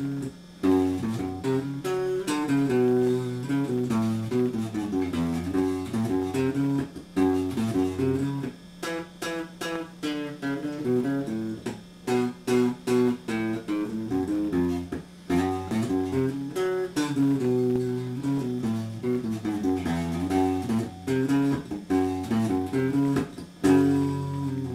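Electric guitar played solo: a repeating riff of picked notes with low bass notes under higher ones, over a steady low hum.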